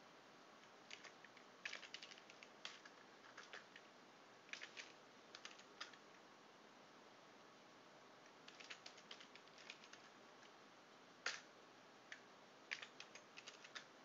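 Faint computer keyboard typing in short runs of keystrokes with pauses between, as a command and a new root password are entered at a terminal prompt. One sharper, louder click comes about eleven seconds in.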